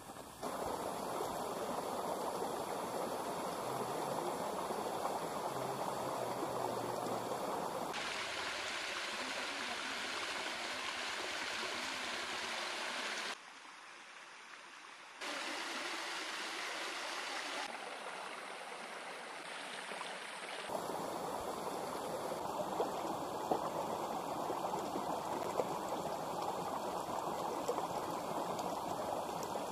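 Rushing water of a river and waterfall, a steady full noise that changes abruptly in loudness and tone several times, with a brief quieter stretch around the middle.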